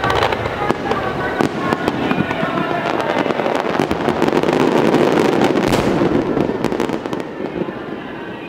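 Fireworks display: aerial shells bursting with many sharp bangs in quick succession, densest and loudest a little past halfway, then easing off near the end.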